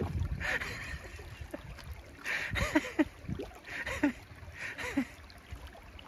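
Shallow rocky stream gurgling, with a few short splashy gurgles about once a second in the middle of the stretch.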